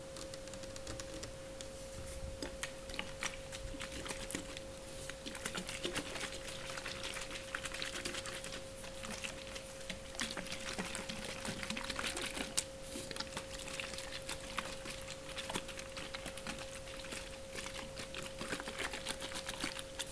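Close-miked crackling and small taps of objects being handled, a dense run of tiny clicks, over a faint steady hum.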